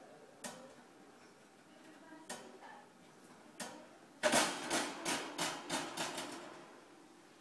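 Wire hamster cage bars and door rattling and clinking as a hamster climbs on them and works at the door: a few single clicks, then a quick run of loud rattles about four seconds in lasting about two seconds.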